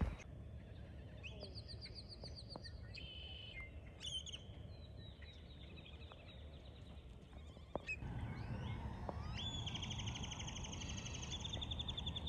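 Songbirds singing: fast trills of rapidly repeated high notes, a short one early and a long one through the last few seconds. Beneath them is a low rumble that grows louder about eight seconds in.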